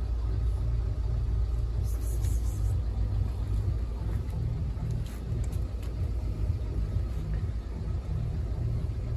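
Steady low outdoor rumble, uneven in level, with a few faint high ticks.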